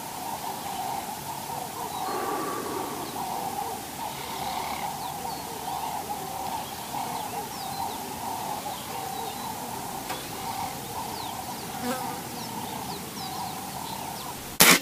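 A steady, wavering buzz with a few faint high chirps. Near the end comes a single sharp shot from a .177 Walther Century air rifle.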